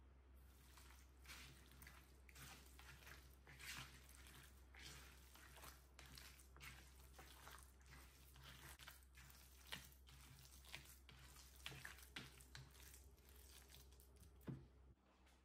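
Hands kneading raw beef mince mixed with chopped onion, egg and herbs in a bowl: faint, irregular wet squelching and squishing.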